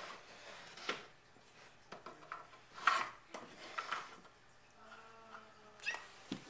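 Small toy blocks knocking and scraping on a plastic toy barn's roof as they are set down and pushed along, in a handful of separate knocks. A brief steady tone is heard about five seconds in.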